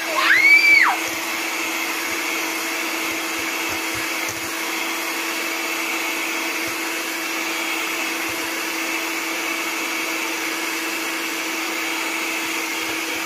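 Electric hand mixer running steadily, its beaters beating cake batter in a stainless steel bowl. A short high squeal rises and falls in the first second.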